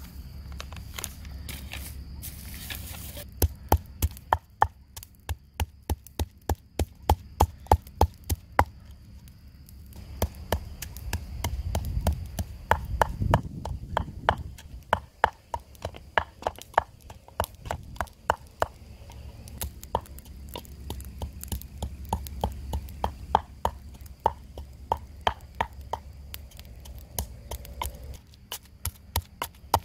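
Pestle pounding chili, garlic and salt in a mortar: a steady run of knocks about two a second, with brief pauses between runs.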